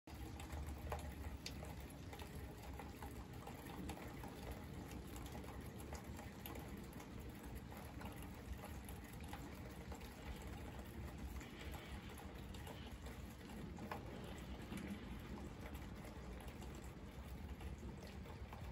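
Rain pattering steadily: a soft, even hiss with scattered taps of single drops.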